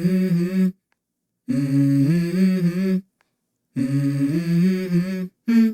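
Background music: a wordless hummed vocal melody in short phrases. It is broken three times by abrupt complete silences.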